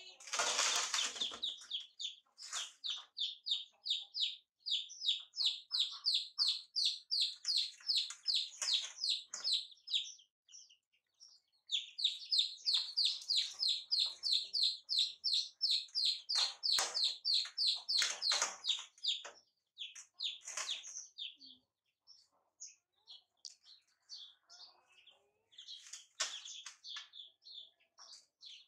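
Young chicks peeping: a fast run of short, high, downward-slurred peeps, several a second, breaking off about ten seconds in, starting again a couple of seconds later and thinning to scattered peeps toward the end.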